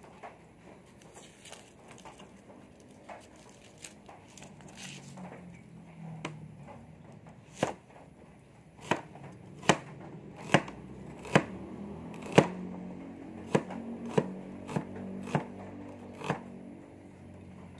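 Kitchen knife chopping onion against a board: a few light taps at first, then sharp chops about one a second through the second half.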